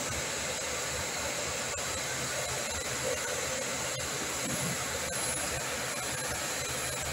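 Steady industrial machinery noise, an even whir with a hiss and no change in pitch, as an underslung EOT crane's hoist lowers its hook block.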